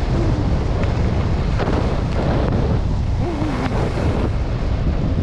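Wind buffeting the microphone of a skier on the move, a loud low rumble throughout, with skis scraping the snow in louder swishes about one and a half and three and a half seconds in.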